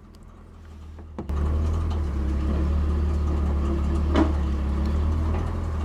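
After a click about a second in, a steady low engine drone sets in and holds, like a machine running at idle, with a short knock about four seconds in.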